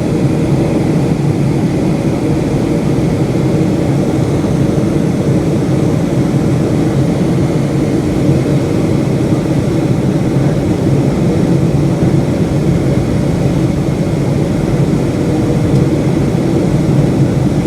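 Loud, steady roar of a Boeing 757-200's engines and rushing air heard from inside the passenger cabin.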